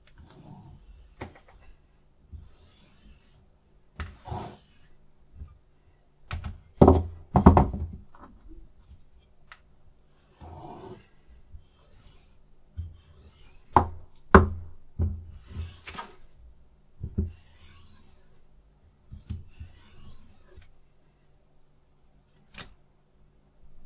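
Sharpening stones and their holder being handled on a guided knife sharpener, with irregular scraping and rubbing and scattered knocks of the stone holder against metal and the table. The loudest knocks come about seven and fourteen seconds in.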